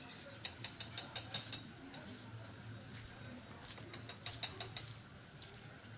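Night insects chirping: two bursts of rapid high clicking, each about a second long, over a faint steady high drone.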